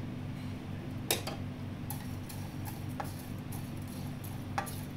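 Sparse light clicks and taps of a wooden spatula and whole spice seeds (coriander, cumin, fennel) in a non-stick pan as they are stirred and dry-roasted. A steady low hum runs underneath.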